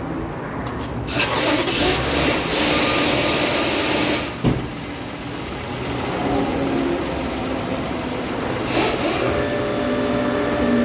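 The engine of a 2009 Toyota Highlander starts about a second in and runs loudly for about three seconds. After a sharp click it settles to a steady idle. It is being run to check the newly welded center muffler for exhaust leaks.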